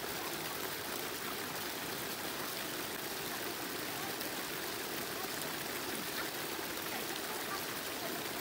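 Shallow water running steadily across a flooded, muddy rice terrace.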